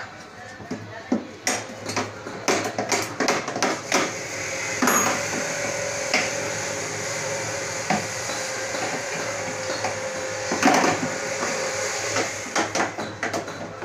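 Metal tools clinking and knocking inside the under-seat compartment of a Honda Activa scooter as its inner bolts are undone. A steady whirr runs through the middle, with sharp clicks before and after it.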